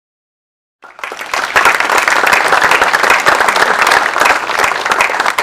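An audience applauding, many hands clapping densely and evenly; it cuts in suddenly out of dead silence just under a second in.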